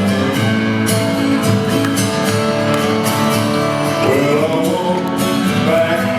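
Pop song with guitar and singing, played loud and steady.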